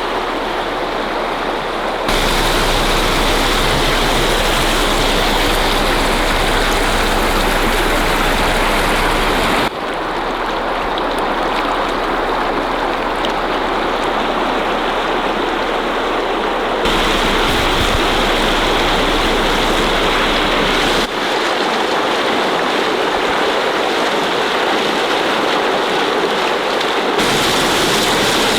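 Water rushing and spraying from a burst residential water main, a loud, steady gush. Its tone and level change abruptly several times.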